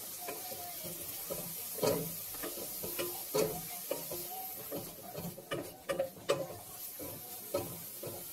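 Onion and grated carrot sizzling in oil in a stainless steel pot. A wooden spatula scrapes and knocks against the pot as they are stirred, loudest about two and three and a half seconds in and in a cluster around six seconds.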